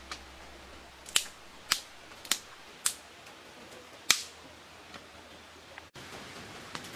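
Dry sticks snapping: four sharp cracks about half a second apart, then a louder one about four seconds in.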